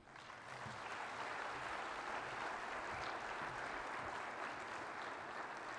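Audience applauding, rising quickly at the start and then holding steady.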